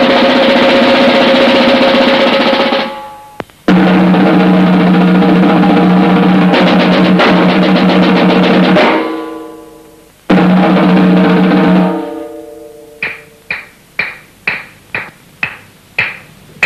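Film-score percussion: a sustained drum roll over held tones that breaks off and comes back sharply twice, then gives way near the end to a steady beat of single drum strikes, about three a second.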